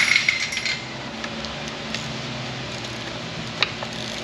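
Hand tools clinking against metal in a short clatter with a brief ring, then a single sharp click near the end, over a steady low hum.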